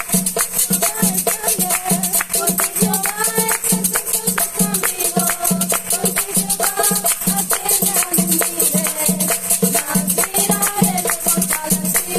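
Music with a steady, fast beat of rattling percussion over a low pulsing bass, with a melody on top.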